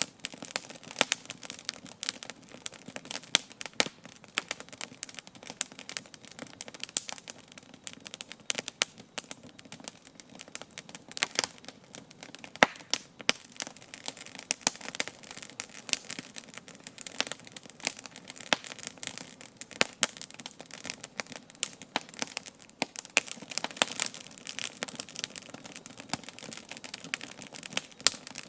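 Wood campfire crackling and popping: many sharp irregular snaps over a steady hiss of burning.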